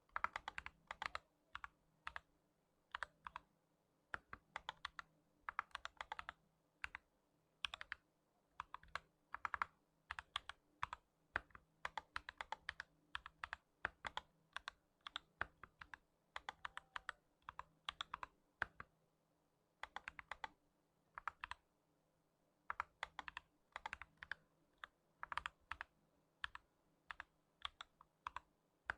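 Typing on an FL Esports 68-key mechanical keyboard fitted with Gazzew Boba U4T tactile switches: quick runs of key clicks with short pauses between the runs.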